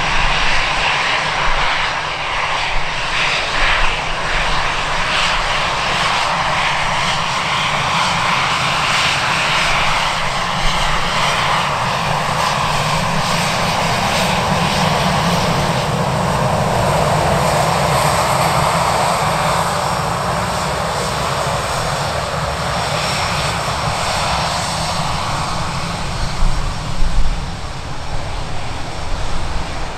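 Airliner engines running close by: a continuous rushing engine noise that swells a little about halfway through.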